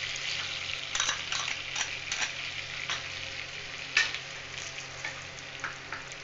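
Whole cumin seeds and bay leaves sizzling in hot vegetable oil and butter, a steady frying hiss with sharp crackles and pops here and there, the loudest about four seconds in.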